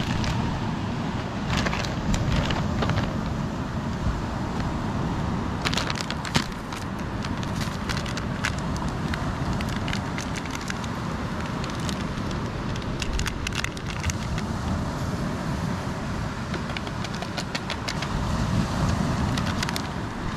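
Steady wind noise on the microphone with surf in the background. At intervals comes the crinkle of plastic instant-coffee sachets and their pouch being handled.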